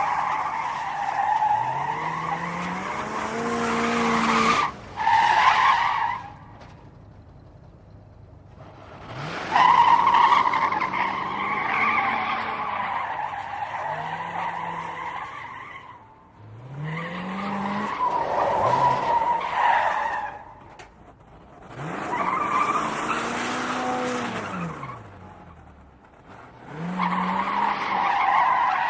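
A string of car skids: tires squealing in about five separate screeches, each with the engine revving up and down beneath it, with short lulls between them.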